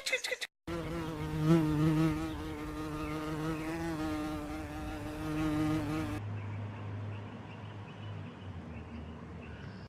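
A flying insect buzzing with a steady, slightly wavering pitch. About six seconds in, it gives way to a lower, quieter hum.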